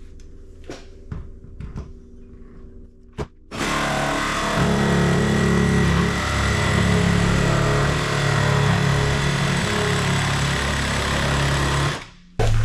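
Jigsaw cutting through the plastic lid of a storage tote. A few light clicks come first, then the saw starts about three and a half seconds in, runs steadily for about eight seconds and stops abruptly near the end.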